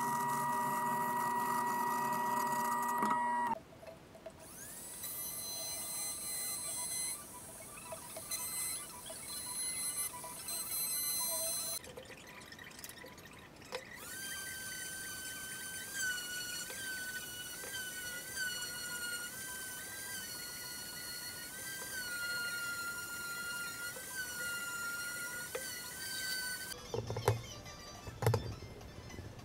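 Bandsaw running steadily, cutting off about three and a half seconds in. Then a handheld random orbital sander spins up and sands wood: a high whine that stops briefly, starts again and wavers slightly in pitch about once a second. A few sharp knocks near the end.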